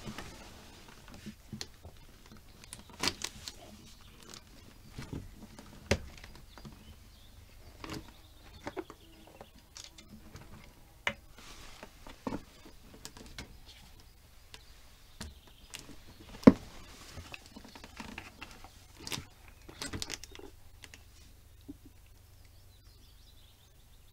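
Scattered light clicks and knocks of handling an idle chainsaw by hand, irregular and well spaced, with one sharper knock about two-thirds of the way through. The engine is not running.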